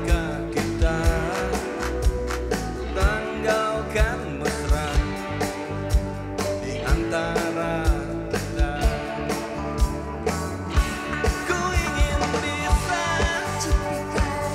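Live rock band playing electric guitars, bass and drums with a steady drum beat, and a vocal singing over it.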